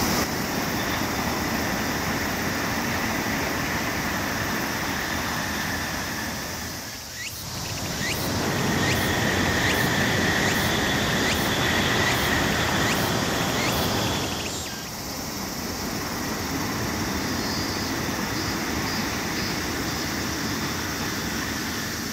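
Tōkaidō Shinkansen bullet train passing along a distant viaduct: a steady, even rushing noise that dips briefly about seven seconds in, then swells for several seconds and eases off. A high, steady insect buzz runs over it.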